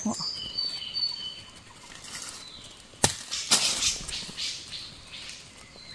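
Hands working a snare in dry forest leaf litter: a sharp click about three seconds in, followed by a short crackling rustle of dry leaves. Thin high bird whistles in the first second.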